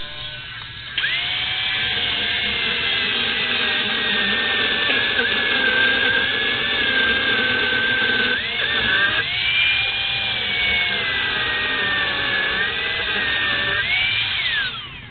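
Handheld electric power tool running at speed with a high whine. Its pitch sags and recovers under load about eight seconds in, then it spins down with a falling whine near the end.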